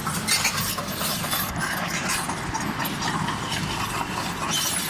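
SANY SY215C crawler excavator's diesel engine running steadily, with scattered light clinks over it.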